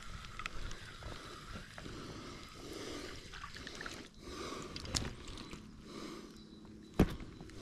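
Shallow creek water sloshing and splashing in soft, uneven swells, with one sharp click about seven seconds in.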